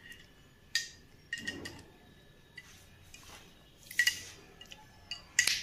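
Thin metal straw clinking against a glass of juice as it is stirred: several sharp, ringing clinks, spaced irregularly.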